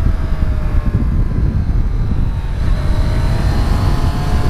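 Triumph Street Triple S 660 cc three-cylinder engine running under way, heard through heavy wind rumble on the rider's microphone. Its note falls slowly for the first couple of seconds, then about three seconds in the engine picks up again and its note climbs gently.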